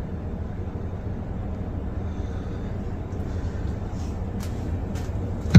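Low, steady rumble of a vehicle running, with a few faint clicks in the last second or so.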